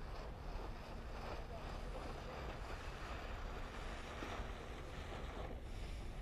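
Wind buffeting the microphone with a steady low rumble, over the rushing hiss of water along the hulls on open water.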